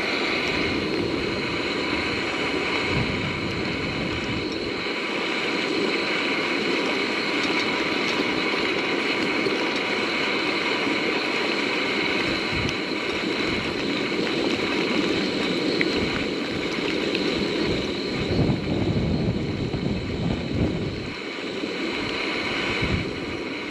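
Rain and hail falling steadily, with wind gusting on the microphone.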